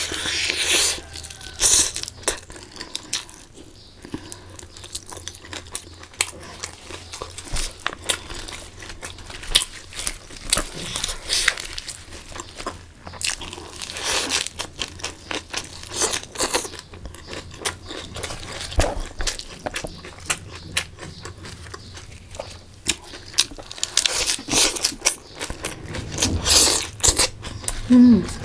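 Close-miked eating: repeated crunching, chewing and mouth clicks, with a few longer breathy, hissing sounds about a second in, midway, and again near the end.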